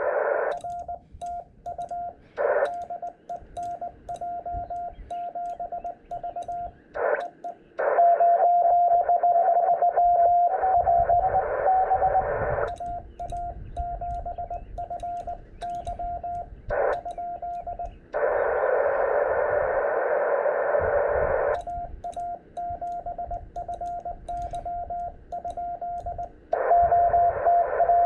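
Amateur radio Morse code (CW) contact on the 18 MHz band. A steady mid-pitched sidetone is keyed in dots and dashes, alternating with several stretches of receiver hiss in which weaker Morse from the other station comes through. Faint clicks sound along with the sending.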